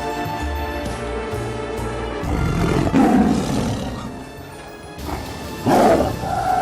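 A big cat roaring twice over background music: a longer roar about two and a half seconds in and a shorter one near the end.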